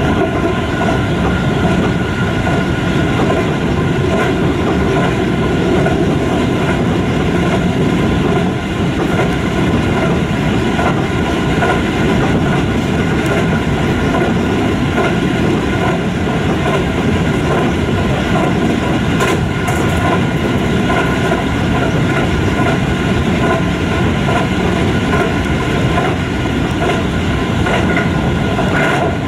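Keio 5000 series commuter train running at steady speed, heard from inside the passenger car: an even rumble of wheels on rail with a steady hum of several held tones.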